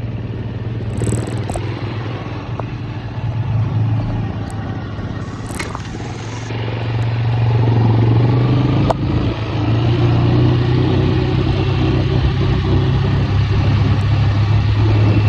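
A vehicle engine running steadily while driving along a dirt track, with a few light knocks. The engine gets louder about seven and a half seconds in.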